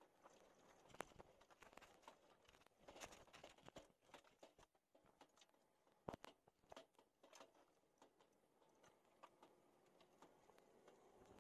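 Faint rustling of clothing brushing against a body-worn camera, with scattered light knocks and clicks of gear. The sharpest knocks come about a second in and about six seconds in.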